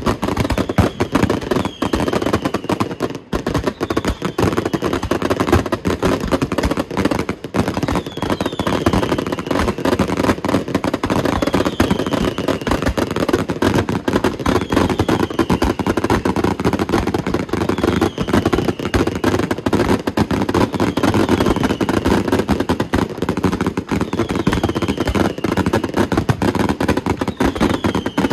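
Fireworks display: aerial shells and crackling effects going off in a dense, continuous barrage of bangs and crackles, with short falling whistles every second or two.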